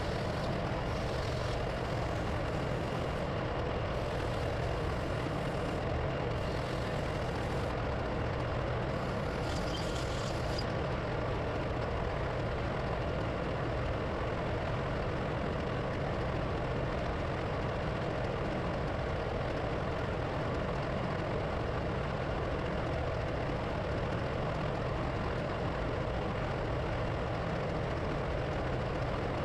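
Steady drone of engine-room machinery, diesel engines running at an unchanging pitch and level. A few faint, brief higher hissing sounds come and go in the first ten seconds or so.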